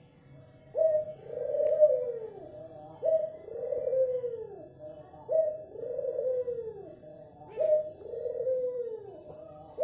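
A caged dove cooing: four coos, each a short sharp note followed by a long falling note, repeated about every two and a half seconds.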